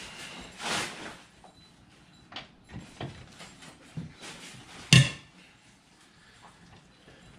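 Hand tools knocking and clinking against an ATV's rear wheel as it is worked on for removal, with a short rustle near the start and one sharp, loud metallic clank about five seconds in.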